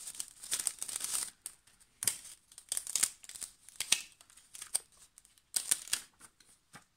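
Plastic packaging crinkling and rustling in several short bursts as hands open a package and pull small items out of it.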